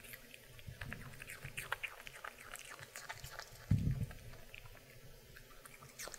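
Maltese dog crunching and chewing pieces of raw apple, a run of crisp, wet little crunches and clicks, with one dull low thump about four seconds in.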